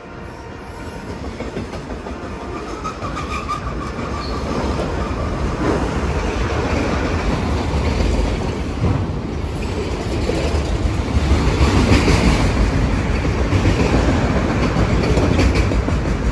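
BNSF freight train's autorack and tank cars rolling past close by: a steady rumble of steel wheels on the rails with clickety-clack over the joints, getting louder as the train goes by.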